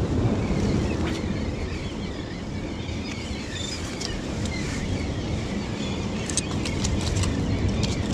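Wind rumbling on the microphone over steady sea surf, with a quick run of small clicks and knocks near the end.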